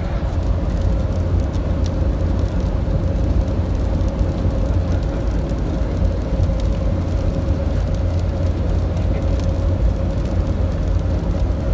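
Heavy rain falling: a loud, steady hiss with a strong deep rumble underneath, scattered sharp ticks of drops, and a steady hum running through it.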